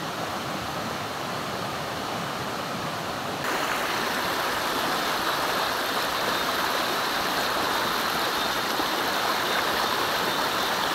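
Steady rushing of flowing river water, which gets louder and brighter about three and a half seconds in.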